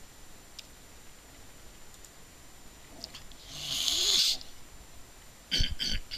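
A person's breath noises close to the microphone: a hissing breath a little under a second long about halfway through, then two short sharp breaths near the end. A few faint clicks come earlier.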